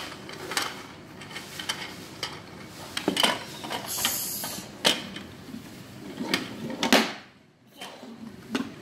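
Plastic Duplo bricks and a Duplo toy car being handled, with scattered clicks and knocks against a wooden floor. The loudest knock comes about seven seconds in, and there is a brief scrape about four seconds in.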